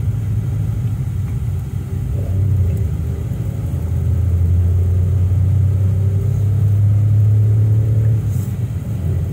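Car engine and road noise heard from inside the moving car's cabin: a steady low drone, with the engine's hum coming through more clearly from about two seconds in.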